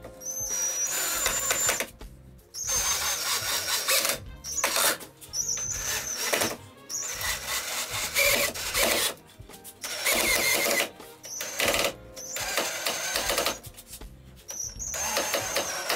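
Cordless DeKo drill/driver driving a long 180 mm wood screw into wood, running in repeated bursts of a second or two with short pauses between them. The motor whines as it strains under the heavy load.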